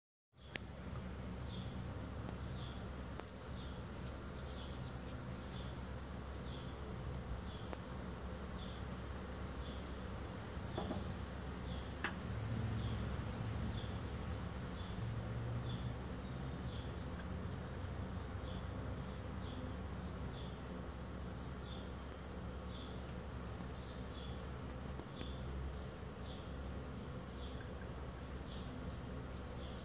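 Insects singing: a steady high drone with a short chirp repeating about twice a second throughout. A faint low rumble sits underneath, and there is one sharp click about 12 seconds in.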